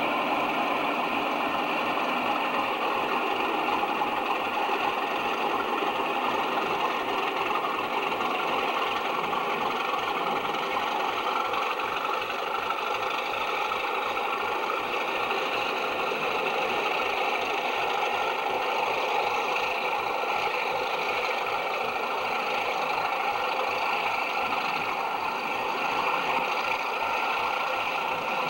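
Diesel locomotive engines running steadily at idle.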